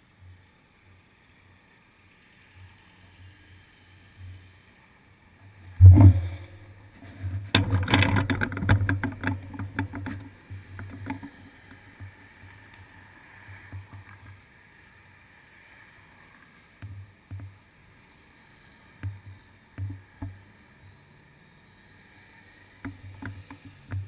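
Road traffic passing through an intersection, with a low murmur that comes and goes. A sharp loud knock comes about six seconds in, followed by a few seconds of rattling clatter.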